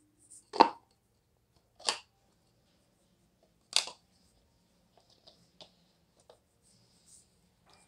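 Orange plastic parts of a manual citrus juicer (reamer cone, strainer and base) knocking and clicking against each other as they are handled and fitted together: three sharp clacks in the first four seconds, the first the loudest, then a few faint taps.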